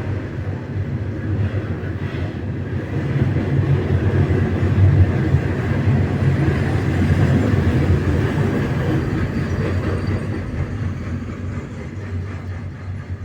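Freight train rolling past: a steady low rumble of locomotives and wheels on the rails. It builds about three seconds in and eases off near the end.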